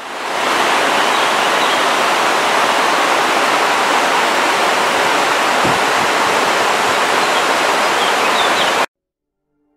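A steady, loud rushing noise, even and unchanging, that cuts off abruptly about nine seconds in.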